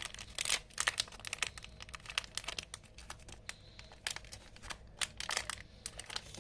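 A small plastic packet crinkling and rustling in the hands as sand is shaken out of it for a sand toy, in quick irregular crackles.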